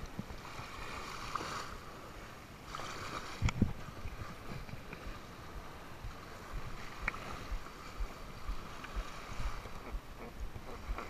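Shallow surf water sloshing and splashing around the wader, with wind rumbling on the microphone and a knock about three and a half seconds in.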